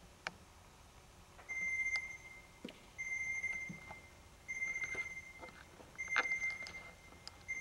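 Electronic alarm-style beeping: a single high-pitched beep about half a second long, repeating about every second and a half, starting about a second and a half in. A few faint knocks sound between the beeps.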